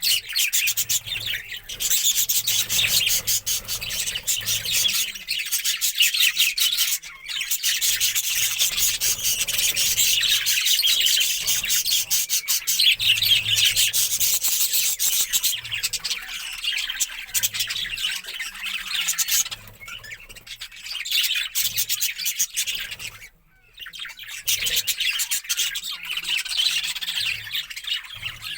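A colony of budgerigars chattering together: a dense, continuous mass of rapid high chirps, warbles and squawks, briefly dropping away for a moment about three quarters of the way through.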